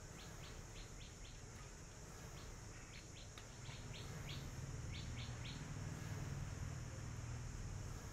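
Small birds chirping outdoors in short, quick chirps that come in clusters through the first part, over a steady high insect drone. A low hum grows louder about halfway through.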